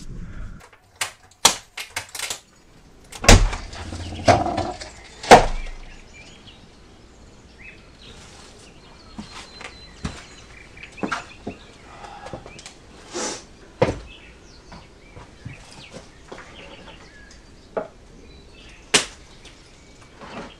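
A run of sharp knocks and clatters in the first few seconds, then a quieter stretch broken by scattered lighter knocks, with a louder knock near the end: hard objects, such as boards or wooden shutters, being moved and set down.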